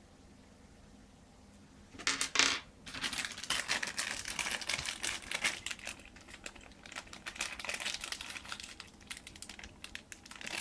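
Small metal screws and cooler mounting parts being handled, clinking and rattling, along with crinkling of their plastic accessory bag. Starts about two seconds in with a louder clatter, then a continuous run of small clicks.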